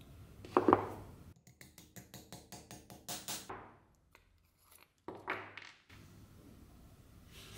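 Metal hand work on a small brass spoon blank on a steel bench anvil: a sharp knock about half a second in, then a quick run of short scraping strokes, about seven a second, and another knock after a short break.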